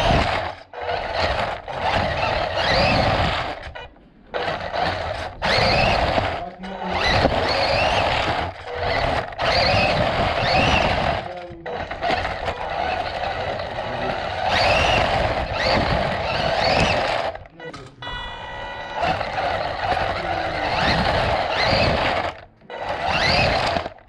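Electric RC car driving hard, its motor and gears whining and rising in pitch as it speeds up, over a steady noise of tyres on concrete. It is heard from the camera mounted on the car. The sound cuts off sharply several times, and each time a new run starts.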